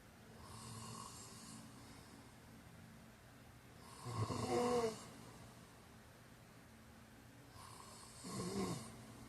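A man snoring in his sleep: two loud, rattling snores about four seconds apart, with a fainter breath just before the first.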